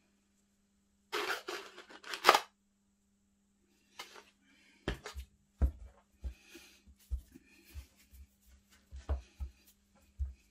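Flour rustled out of the hand onto a plastic cutting board, two brief loud rustles, then a ball of pastry dough pressed and turned in the flour with soft, irregular low thumps and light taps against the board.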